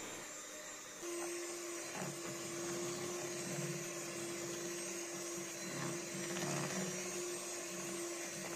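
Electric hand mixer running at a steady speed, a low even motor whine as its beaters churn thick cookie dough; the motor comes on about a second in.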